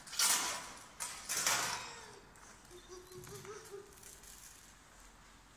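Hot metal firebox stove hissing and sizzling as it is pressed into a puddle of water to cool it: two sharp hisses about a second apart at the start, then a quieter simmering hiss.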